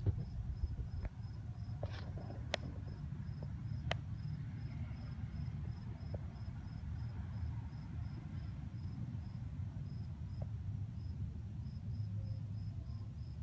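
A cricket chirping steadily, short high chirps about three a second, over a low rumble, with a few sharp clicks in the first four seconds.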